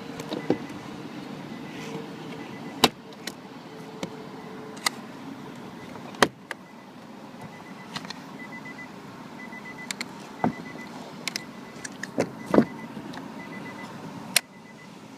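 Scattered sharp clicks and knocks of a car's plastic interior door panel and its linkage being handled, over a steady background hum.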